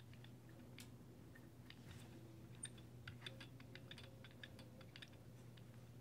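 Faint, irregular small clicks from hands turning the knurled flow adjust knob on an LI-6400 chemical column through its range, over a low steady room hum.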